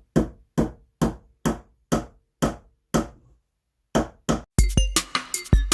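A hammer driving nails into a block of wood, striking about twice a second with a steady rhythm. The strikes pause briefly, come twice more, and then background music with a beat starts near the end.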